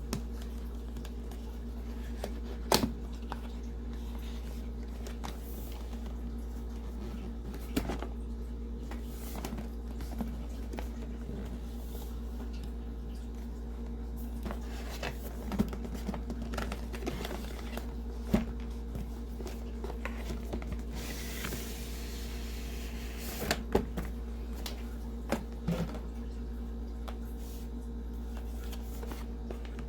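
Keyboard box being handled and opened: scattered sharp knocks and taps, and a rustle lasting about two seconds a little past the middle, over a steady low electrical hum.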